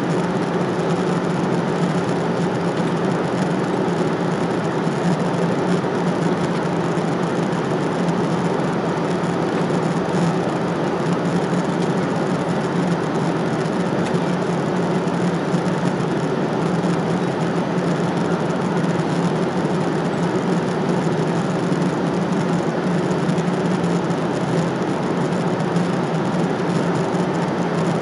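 Airliner cabin noise in flight: the steady rush of the engines and airflow, with a constant low hum under it.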